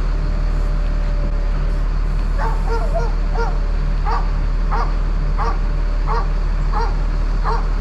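Dog barking repeatedly, starting a couple of seconds in, about three barks every two seconds, over the steady low running of a bucket truck's engine.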